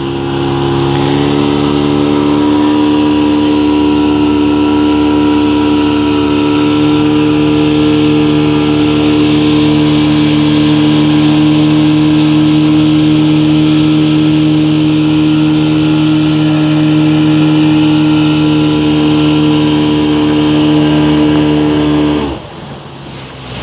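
Motorboat engine running at a steady speed with an unchanging hum, over water and wind noise; the engine sound drops away sharply about twenty-two seconds in.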